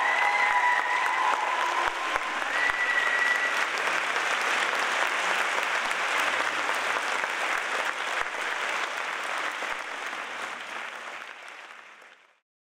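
Audience applauding, with a few held high whoops over it in the first three seconds; the applause fades out near the end.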